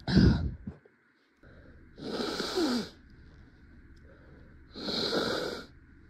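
A woman with a head cold sneezing loudly right at the start, then drawing two long, noisy breaths about three seconds apart.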